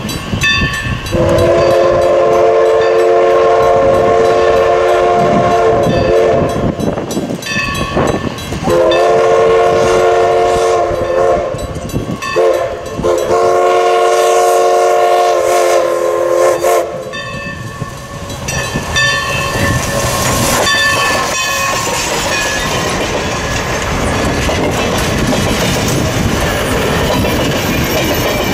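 Everett Railroad No. 11, a 1920 ALCO 2-6-0 Mogul steam locomotive, sounds its steam whistle in three long blasts for a grade crossing. Then the train rolls past, its wheels clicking over the rail joints.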